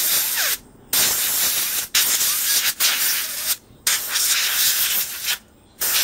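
Compressed air from an air compressor's blow nozzle hissing into a laptop's vents to clear dust from the cooling fan. It comes in several loud blasts with short breaks between them.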